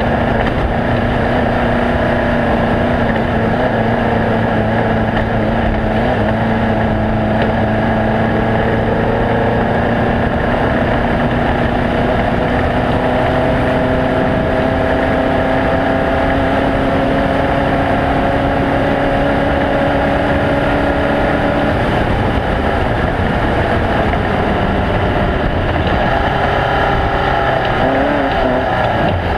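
Off-road race vehicle engine running loud and steady, its pitch creeping slowly upward for most of the stretch, then shifting and wavering near the end.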